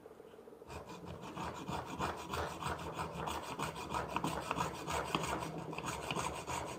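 Small hand hacksaw sawing through a cured white SLA resin print clamped in a vise: a steady run of short, quick rasping back-and-forth strokes starting about a second in. The blade grinds the hard resin into dust rather than melting it or cracking it.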